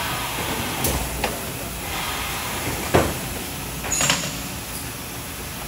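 Steady hiss of a factory floor, with a few short knocks and clicks, the loudest about three seconds in.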